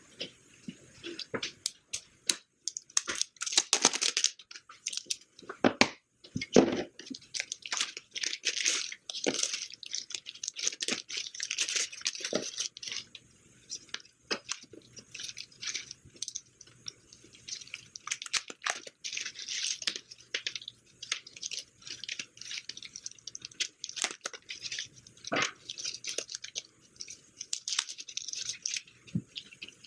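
Plastic bags and paper packaging crinkling and rustling in irregular bursts as small parts are unwrapped and handled, with scattered sharp clicks and knocks.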